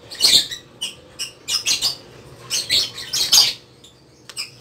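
Hard plastic of an Isuzu Crosswind aircon vent louver squeaking and scraping against a scissor blade as the blade is worked between the slats. It comes as a string of short, high-pitched squeaks about every half second to second.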